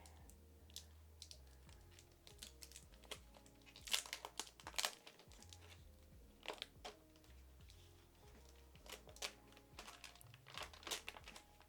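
Plastic packaging crinkling and tearing in scattered bursts as a new smartphone is unwrapped, loudest about four and five seconds in, over faint background music.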